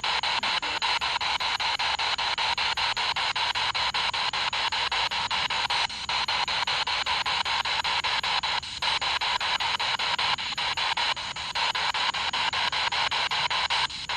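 Spirit box sweeping through radio stations: loud, choppy static with rapid, even clicking as it scans, cutting out briefly several times.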